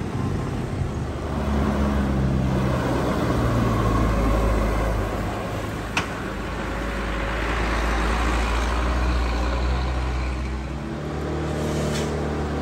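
Diesel truck engines running as loaded trucks pull through a bend, with other road traffic. Two brief clicks come about six and twelve seconds in, where the footage cuts.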